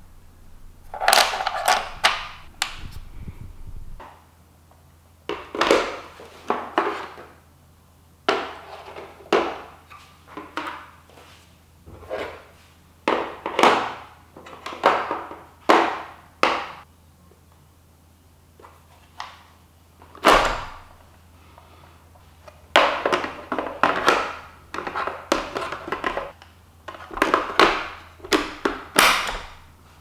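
Plastic parts of robot vacuum cleaners being handled: a cleaning brush tool and the dustbins taken out and put back, giving a string of separate clicks, knocks and short scrapes with short pauses between them.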